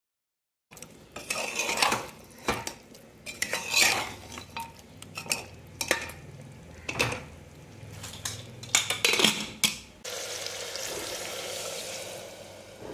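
Steel ladle scraping and clanking against the sides of an aluminium pressure cooker as mutton curry pieces are stirred. About ten seconds in, water is poured into the pot in a steady splashing stream.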